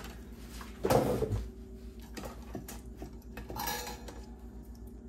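Hard tools and small objects clinking and clattering as they are handled on a workbench, with one louder clunk about a second in and scattered smaller clicks after. A steady low hum runs underneath.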